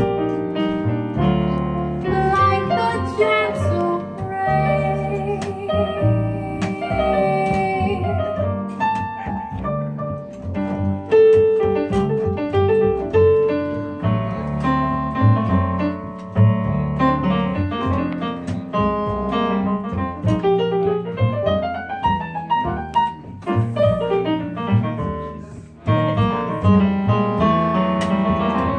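Live jazz instrumental: a Yamaha digital stage piano plays chords and melody lines over an upright double bass.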